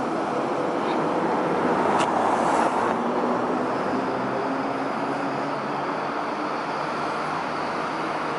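Car traffic driving across a steel-grate bridge deck: a steady tyre and road noise that swells as a car passes, loudest about two seconds in.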